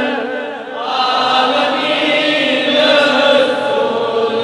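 A congregation of men chanting a devotional refrain together, many voices blending into one unison line that swells in about a second in. It is the crowd's response to a sung religious recitation.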